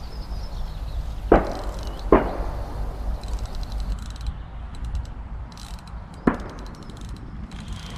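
A fixed-spool fishing reel being wound in while a hooked fish is played, with fast light ticking from about three seconds in. There are three sharp knocks: one just over a second in, one about two seconds in, one about six seconds in. Wind rumbles steadily on the microphone.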